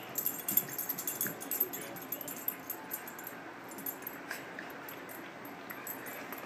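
A small dog's excited sounds, with the collar tags on its pink collar jingling in quick clinks, thickest in the first couple of seconds.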